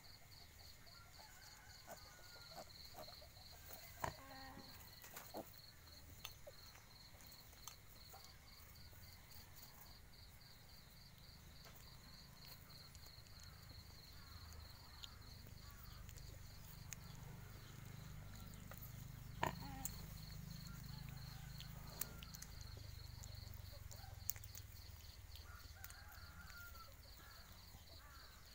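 Near-quiet ambience with an insect chirping in a steady, evenly pulsing high trill, a low rumble swelling through the middle and a few soft clicks.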